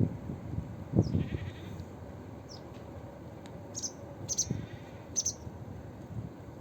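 Animal calls outdoors: a couple of louder low calls near the start and about a second in, then a series of short, high chirps at irregular intervals.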